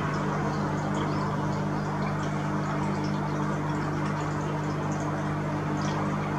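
A steady low hum made of several constant tones, with a constant hiss over it and scattered faint ticks.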